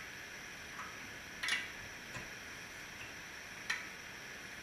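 Wrench tightening the nuts that hold a cover plate over a two-stroke engine's exhaust port: four light, separate clicks spread irregularly over a few seconds.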